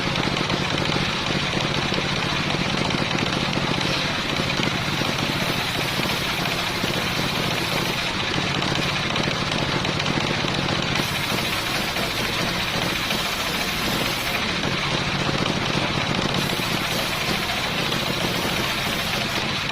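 Homemade engine-driven circular saw running steadily as it saws salam wood. A higher hiss comes in three times for a few seconds each, over the steady low drone of the motor.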